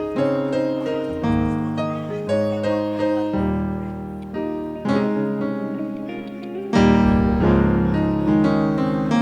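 Electric keyboard playing sustained piano chords over a deep bass note, with the chord changing about once a second. A louder chord comes in about seven seconds in.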